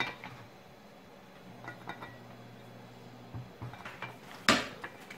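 Handling parts of a chainsaw powerhead: scattered small clicks and clinks of metal and plastic, then one louder knock near the end.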